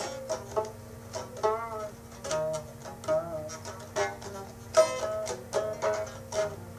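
Music on a plucked string instrument: single notes and short clusters picked at an uneven pace, each starting sharply and fading, some with a wavering pitch.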